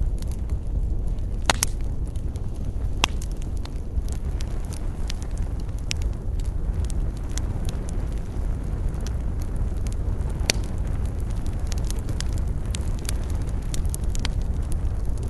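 Wood campfire crackling, with frequent sharp pops and snaps over a steady low rumble; the loudest snaps come about one and a half, three and ten seconds in.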